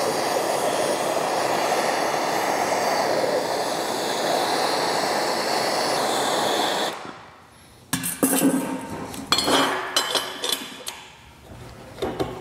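MAP gas hand torch burning with a steady hiss as it heats an aluminum end bell, shut off about seven seconds in. After a short pause comes a run of irregular metallic clinks and knocks as the bearing is dropped and pressed into the heated end bell.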